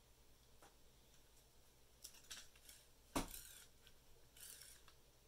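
Faint handling sounds of a small plastic RC car chassis being turned over in the hands: light rustles and ticks, with one sharp click about three seconds in.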